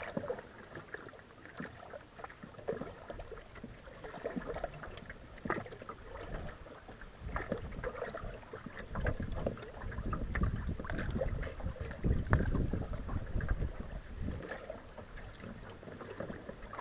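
Canoe paddle work on open water: paddle dips and water lapping at the hull, with scattered small knocks. Wind rumbles on the microphone through the middle.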